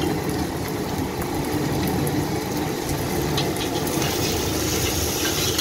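A steady low rumble, like an engine idling, with a few faint clicks in the second half.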